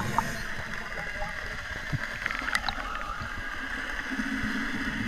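Underwater sound heard through a camera housing: a steady hiss with faint gurgles and clicks of rising air bubbles from a scuba diver, and a low bubbling swell building near the end.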